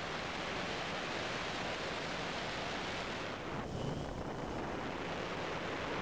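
Steady rushing hiss of wind and rotor wash on the GoPro microphone of a DJI Phantom 2 quadcopter in flight. The hiss thins briefly a little past halfway.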